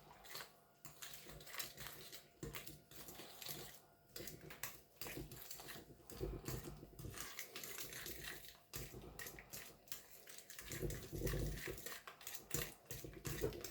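A utensil scraping and clicking against a mixing bowl as butter, sugar and egg dough is stirred, in irregular faint strokes with a few soft low thumps.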